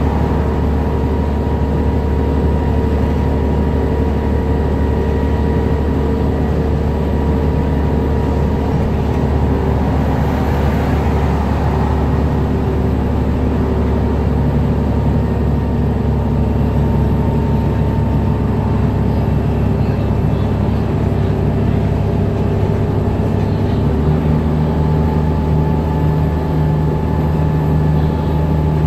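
Cummins ISM diesel engine and Allison six-speed automatic transmission of a 2007 New Flyer D60LFR articulated bus running under way, heard from inside the bus as a steady low drone. Its low note changes about three-quarters of the way through.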